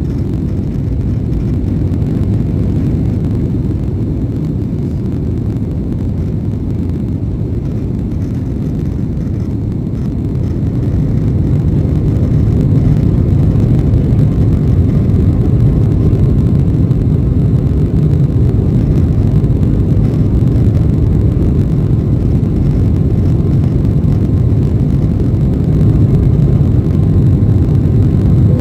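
Steady low rumble of a jet airliner's cabin in flight: engine and airflow noise heard from a window seat, growing a little louder about twelve seconds in.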